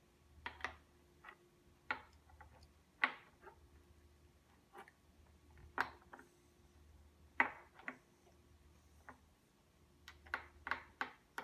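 Small wooden puzzle blocks and figures knocking and clicking against each other and a wooden base as they are picked up and set in place: a dozen or so irregular light knocks.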